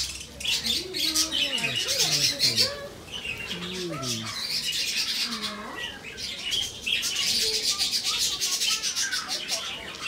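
A flock of budgerigars chattering: a dense, continuous warble of rapid high chirps and twitters, easing briefly about three seconds in.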